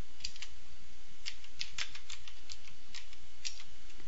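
Computer keyboard keystrokes: a short command typed at an irregular pace and entered, heard as separate sharp clicks over a steady low hum.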